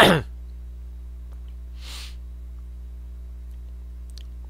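Steady low electrical hum on the microphone line during a pause in talk, with a single short breath about two seconds in.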